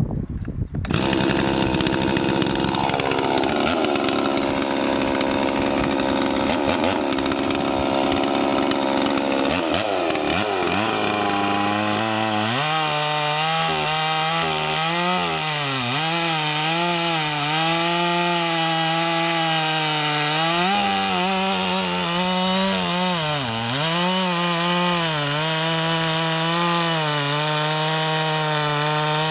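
Two-stroke Stihl MS 440 clone chainsaw, built from a Farmertech/Huztl kit, starts up about a second in and runs. Partway through it settles into a high steady pitch as it cuts a slice off a big log, wavering and dipping briefly a few times under load.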